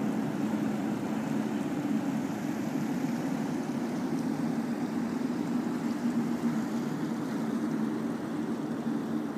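River water flowing and swirling along a rocky shore, with a steady low motor hum underneath.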